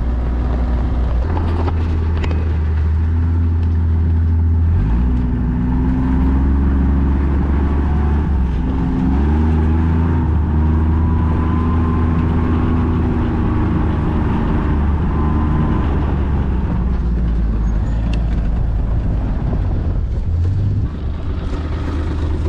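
Engine of a utility vehicle (a "mule") running steadily, its speed stepping up and down a few times as it is driven.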